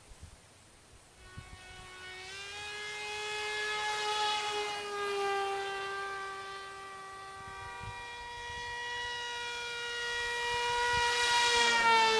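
A small electric flying wing's motor and propeller whining in flight. The pitch climbs as it throttles up about two seconds in, then the whine swells louder as the wing comes close and drops in pitch as it passes near the end.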